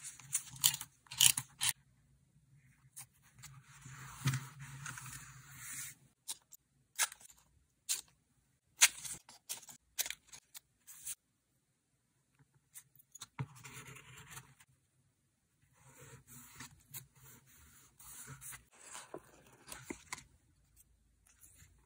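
Scissors snipping through paper, and paper rustling and scraping as cut-outs are handled and laid on a journal page, in short bursts with pauses between.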